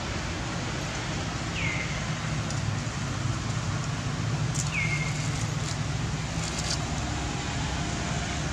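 Steady outdoor rumble, like wind on the microphone or distant traffic. Two short high chirps falling in pitch come about three seconds apart, and a few faint clicks follow.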